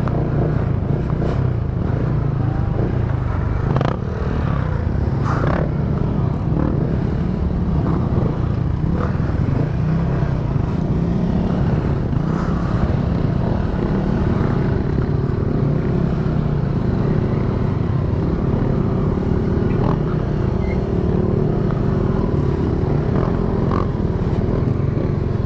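A motor vehicle's engine running steadily with a loud low rumble, heard on board, with a few sharp clattering knocks early on.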